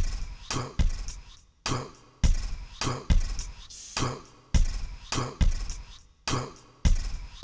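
Outro music with a steady drum beat: repeated deep kick-drum hits alternating with sharper snare-like hits.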